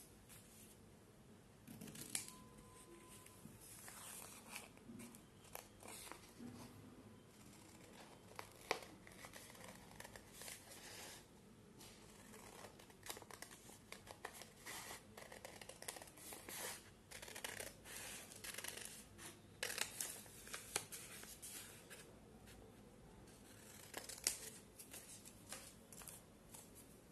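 Scissors cutting a paper pattern: faint, irregular snips with rustling as the paper is handled and turned.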